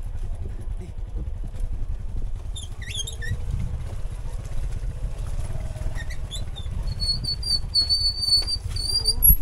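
Motorbike running low and rolling downhill, with short high squeaks a few seconds in and a held high-pitched brake squeal over the last two seconds or so.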